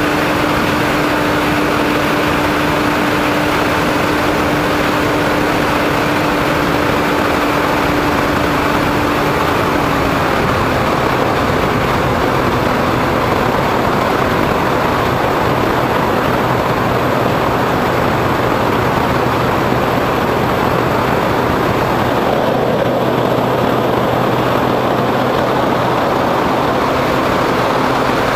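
Remote-control foam plane in flight, heard from its onboard camera: a steady motor and propeller drone under wind rushing past the microphone. The motor's pitch drops slightly about ten seconds in.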